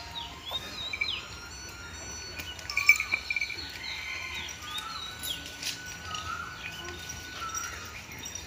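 Several birds calling: short whistled chirps that rise and fall, overlapping throughout, with a louder chattering burst about three seconds in.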